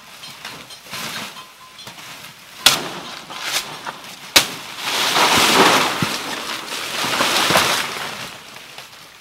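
Dry banana leaves and undergrowth crackling and rustling as a person pushes through them: two sharp snaps a few seconds in, then a longer stretch of loud rustling and crunching.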